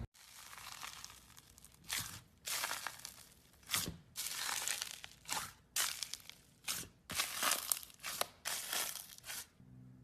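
Slime being squeezed and pressed by hand, giving a string of crackling, crinkly crunches, some short snaps and some drawn out for about a second.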